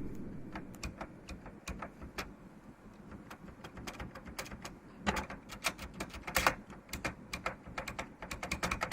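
Mechanical keyboard keys being typed on: irregular clacking keystrokes, with louder clusters about five seconds in and again around six and a half seconds. The stabilizers are still stock, not yet clipped or lubed.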